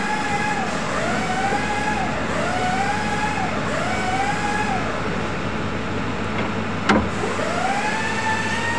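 Metal-on-metal squeal of a VMC drawbar being twisted back and forth by hand inside the spindle bore. It comes as a rising, held and falling squeal about once a second, four times, then one longer squeal near the end, with a sharp click just before it and a steady machine hum underneath.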